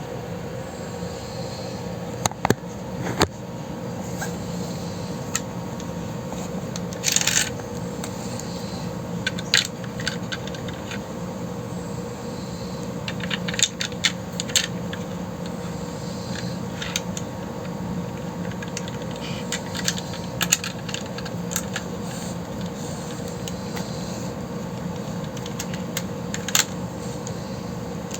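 Lego bricks handled: scattered sharp plastic clicks and a few short rattles, over a steady hum.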